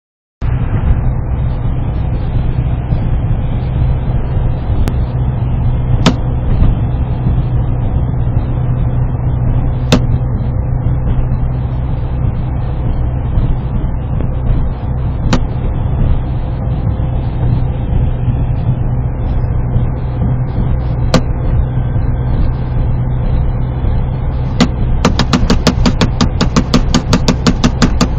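Steady engine and road noise heard inside a 1995 Ford Contour's cabin while driving at about 70 mph. A few sharp single clicks come through it, and near the end there is a fast, even run of clicks, about six a second, for about three seconds.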